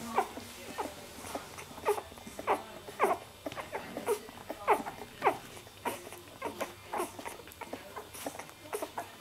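Nursing puppies squeaking and whimpering at the teat: a run of short, high squeaks that fall in pitch, about two a second.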